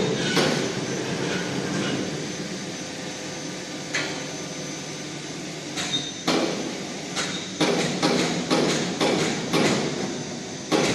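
Heavy 304 steel furnace covers being moved, giving irregular metal clanks and knocks: one at the start, one about four seconds in, then a quick run of them, roughly two a second, through the second half.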